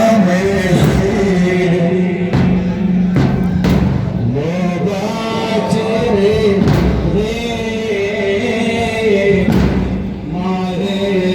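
A man chanting a melodic religious lament, holding long wavering notes over a steady low held tone, with a few knocks partway through.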